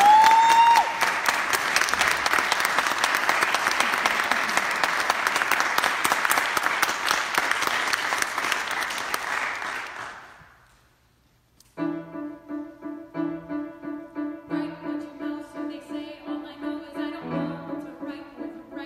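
Audience applause with a short high-pitched call at the start, fading out about ten seconds in. After a brief hush, a piano starts an introduction of repeated notes, about two a second.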